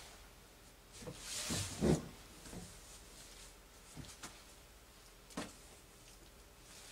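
Handling noises: a brief rustle ending in a dull thump, then a few light knocks.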